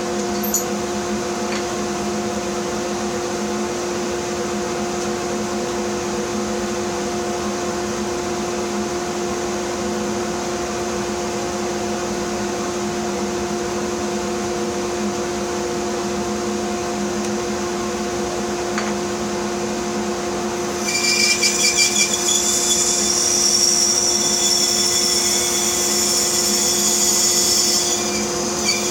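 Bandsaw running with a steady hum; about two-thirds of the way in, the blade cuts through a block of wood along the fence for about seven seconds, adding a loud high hiss that stops shortly before the end.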